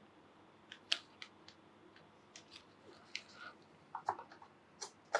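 Light, scattered clicks and small rustles, a few a second, from board game pieces and their plastic bag being handled.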